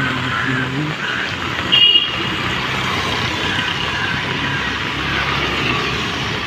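Road traffic noise with distant voices, and a short, sharp high-pitched sound about two seconds in.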